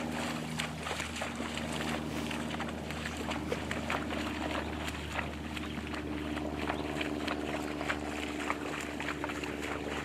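A horse wading through shallow pond water, its hooves splashing in an irregular series of short splashes, over a steady low hum.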